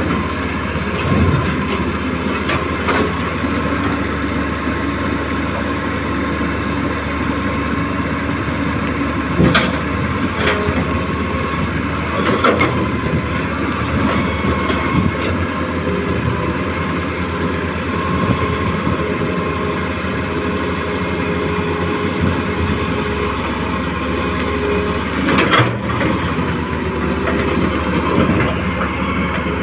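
Excavator working, its engine or pump running steadily, with a few sharp knocks and clanks from time to time as it digs and loads sand.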